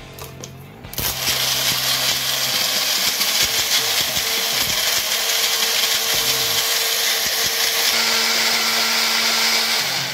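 Compact personal bullet blender with its motor running at full speed, whipping yogurt, cocoa, coffee and ice cubes into a lassi. It starts suddenly about a second in, holds a steady drone with a faint whine, and cuts off near the end.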